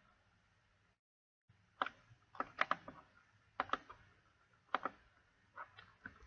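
Computer mouse clicks and keystrokes, sparse and spaced out, several of them double clicks, with the sound cutting out completely for about half a second about a second in.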